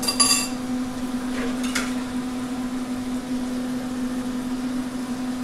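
Steady electric hum from a kitchen appliance, with a silicone spatula scraping and tapping in a nonstick frying pan of beef teriyaki in the first half-second and again about two seconds in.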